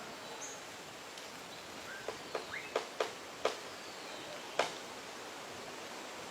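Montezuma oropendola calling: a short rising note, then a run of about six sharp, clicking notes, starting about two seconds in, over a steady background hiss.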